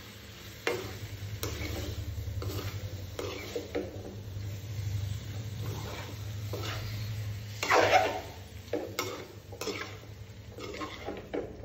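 A spoon stirring chopped raw mango and spices in a metal kadai, with repeated scrapes and knocks against the pan, the loudest about eight seconds in. Under the stirring the pieces sizzle as they fry in oil.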